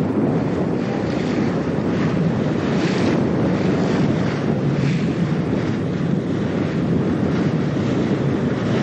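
Wind buffeting the microphone: a steady, loud, rumbling roar.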